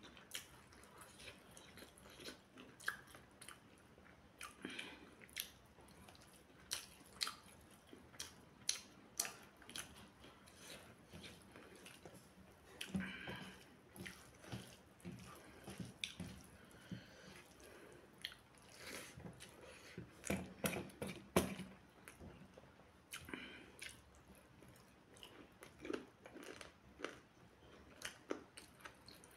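Close-miked eating sounds: chewing and wet mouth clicks and smacks as rice and curry are eaten by hand, an irregular run of short clicks with busier clusters about halfway through and about two-thirds in.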